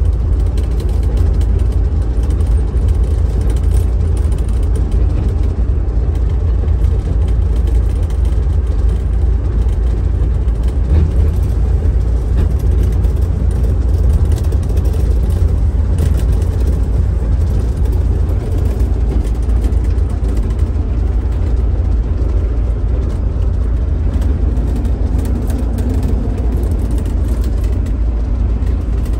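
Motorhome driving at road speed, heard from inside the cab: a steady low rumble of engine and tyre noise.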